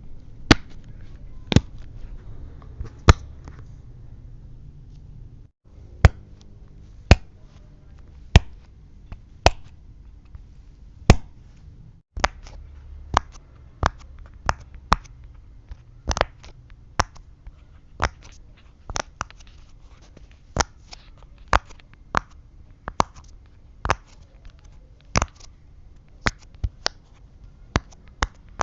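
Silicone pop-it fidget toy, its bubbles pressed through one at a time, each giving a sharp pop. The pops come irregularly, sparse at first, then about one a second, and a little quicker in the second half.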